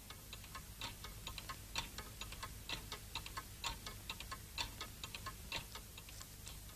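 Wall clock ticking steadily and faintly: a quick run of small ticks, with a louder tick about once a second.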